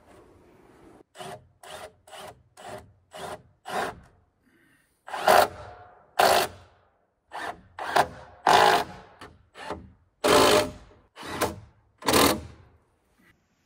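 Hand saw cutting wood by hand: a few short, quick strokes start the cut, then longer, louder rasping strokes follow about a second apart.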